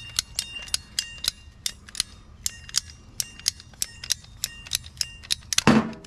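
Ratcheting hand tool clicking steadily, about three sharp metallic clicks a second, each ringing briefly, likely a ratchet PVC pipe cutter working through the pipe; a louder, rougher sound comes near the end.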